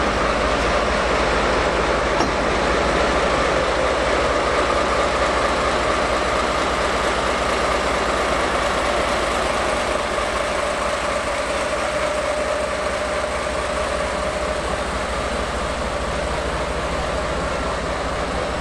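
JNR DE10 diesel-hydraulic locomotive idling at a standstill: a steady engine drone with a constant whine.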